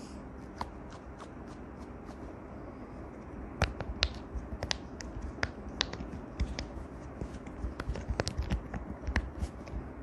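Silicone pop-it fidget toy having its bubbles pressed in by the fingers: a few faint clicks at first, then an irregular run of sharp pops from about three and a half seconds in.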